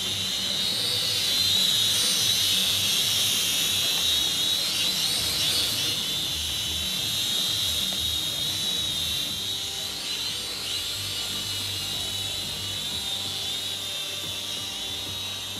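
BAYANGTOYS X5C-1 quadcopter (a Syma X5C clone) in flight, its small brushed motors and propellers giving a high whine that wavers in pitch as the throttle changes, growing fainter toward the end. It is running on a low battery, with the low-battery LEDs blinking.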